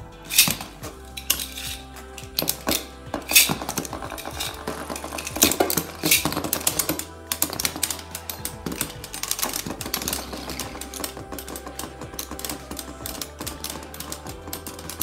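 Beyblade spinning tops clattering and knocking into each other and the sides of a fabric storage box, with rapid sharp clicks that are densest in the first seven seconds and thin out as the tops slow; background music plays underneath.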